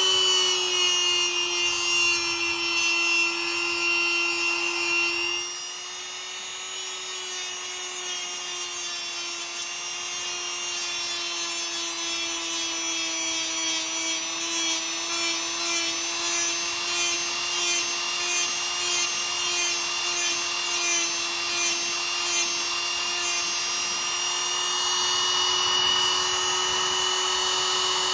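Small cordless rotary tool running at a steady whine with a sanding drum grinding a small hand-held piece. The sanding noise dips quieter about six seconds in, then pulses about twice a second through the middle stretch.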